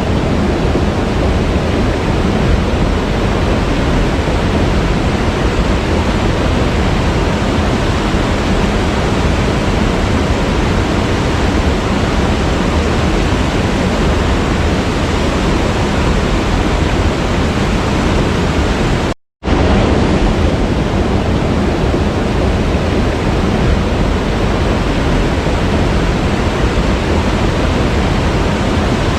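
Steady, loud rushing of a waterfall, cutting out completely for a split second about two-thirds of the way through before resuming unchanged.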